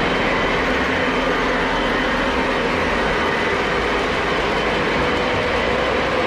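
Lionel O gauge model trains running on the layout: a steady, unbroken rumble of wheels on the track with a few faint steady tones over it.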